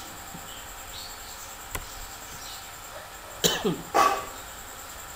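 A man coughs twice, about half a second apart, a little over three seconds in. Before that comes a single sharp click, over a steady faint hiss.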